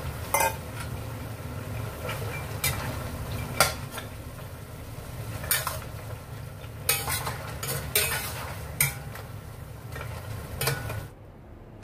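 Metal spatula stirring pork feet and boiled eggs in a stainless steel wok, scraping and clinking against the pan about ten times over a steady low hum.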